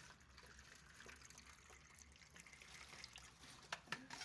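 Water poured from a plastic container into an aluminium foil tray, a faint trickle, with a few light clicks near the end.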